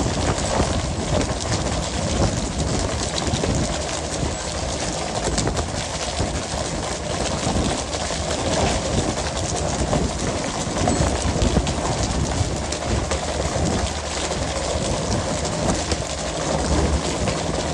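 Working deck of a pole-and-line tuna boat at sea: a steady rush of engine and water noise, with frequent knocks and rapid tapping of landed skipjack tuna and poles on the deck.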